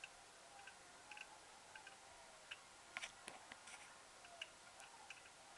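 Faint, irregular clicking of large plastic nuts and bolts being turned and handled, plastic parts and threads knocking together, with a cluster of sharper clicks about three seconds in.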